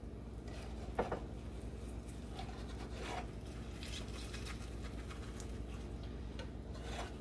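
Soft scrapes of a spatula working under the edge of a setting omelet in a square nonstick pan, at about one second in, three seconds in and again near the end, over a low steady hum.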